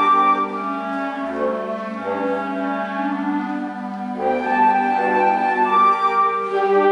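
Wind ensemble playing sustained, slow-moving chords, softer at first and growing fuller and louder about four seconds in.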